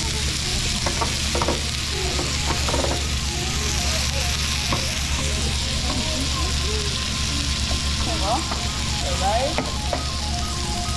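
Steak chunks sizzling on a hot cast-iron plate under a paper splatter napkin: a steady hiss.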